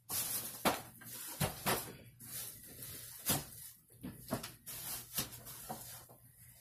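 Packing being handled: a series of short knocks and rustles as a carpeted cat-tower cube is set down on a table and hands rummage in a cardboard box lined with plastic wrap.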